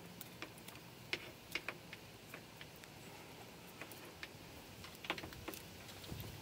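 Scattered light clicks and ticks, irregular and faint, from hands handling a PVC-tube antenna wound with coax and fastened with plastic zip ties.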